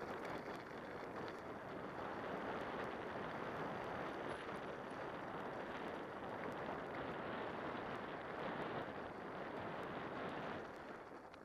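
Mountain bike tyres rolling over a loose gravel and dirt track: a steady rushing crunch with small stone ticks, mixed with wind on the helmet-mounted microphone. The noise drops away sharply near the end.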